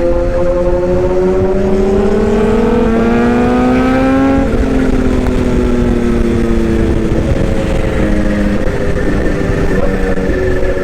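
Toy excavator's electric motors and gears whining. The pitch rises over the first four seconds, drops back, and then shifts in small steps later on.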